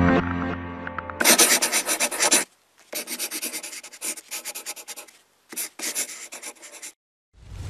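A typing sound effect: bursts of rapid keystroke clicks, a few groups with short gaps between them, as the text is typed out. It follows the tail of a sustained synth chord that ends about a second in, and a rising whoosh begins near the end.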